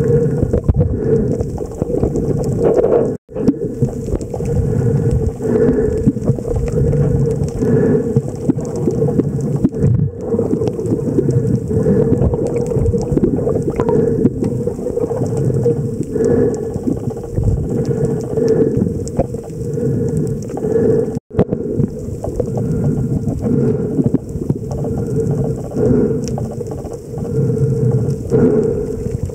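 Underwater sound picked up by a snorkeler's camera among a pod of spinner dolphins: a dense, steady low rumble of water moving around the camera, with faint clicks through it. It drops out abruptly twice, about three seconds in and again about twenty-one seconds in.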